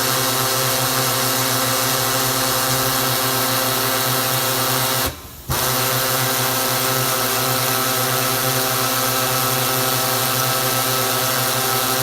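Ball-surface peen sanding machine running at its second die, its tool working a ball's surface with a steady mechanical hum and hiss. It cuts out for about half a second a little past five seconds in, then carries on.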